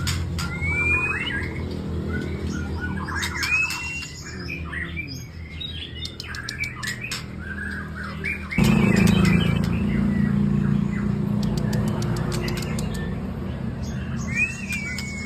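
White-rumped shama (murai batu) of Aceh forest stock singing: clear rising whistles mixed with a varied run of quick chattering and clicking notes.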